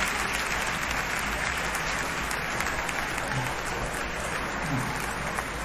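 Live theatre audience applauding steadily, a dense wash of many hands clapping.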